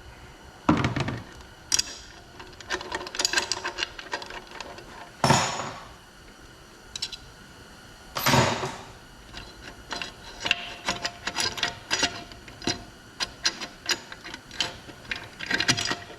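Metal parts of a Chrysler A727 TorqueFlite automatic transmission being worked loose and handled during teardown: irregular clinks and knocks, with two louder, longer scrapes about five and eight seconds in.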